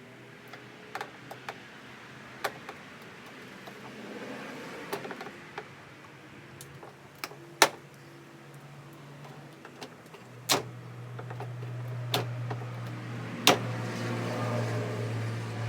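Scattered sharp clicks and knocks as the plastic tabs and fasteners of a stock Jeep Wrangler JK fender are worked loose with a pry bar. A steady low hum comes in about ten seconds in and grows louder toward the end.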